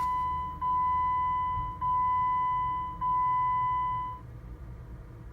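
Car's dashboard warning chime sounding with the ignition key turned to on: a steady single-pitched tone that restarts about every 1.2 seconds, about four times, and stops about four seconds in.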